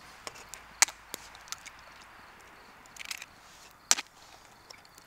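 A few sharp cracks and snaps over a faint steady background, the loudest about a second in and again near four seconds in, with a quick cluster just before the second and lighter ticks between.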